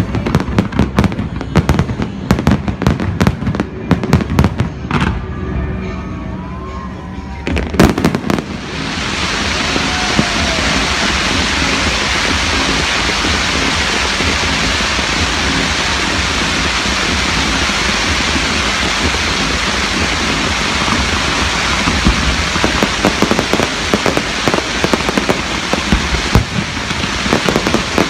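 Fireworks going off: a rapid run of bangs and crackles, ending in a loud bang about eight seconds in, then a dense, steady crackling hiss, with scattered bangs returning near the end.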